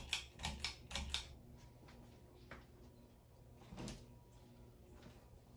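Vintage Evergo top-mount ceiling fan starting on low speed: a faint steady motor hum under a quick run of sharp clicks and knocks in the first second, with two more single clicks later.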